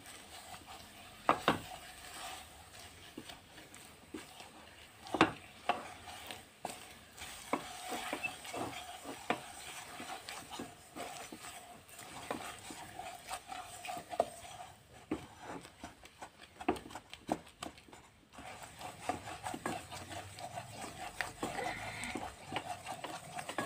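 Wooden spatula stirring and scraping through jaggery as it melts in a non-stick kadhai over low heat: irregular scrapes and taps against the pan, with a faint sizzle.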